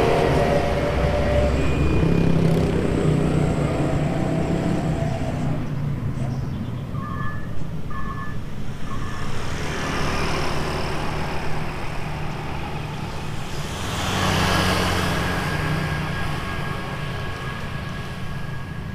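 Heavy trucks passing on a highway, engine and tyre noise swelling and fading as each goes by. A quick run of short high beeps comes about seven seconds in.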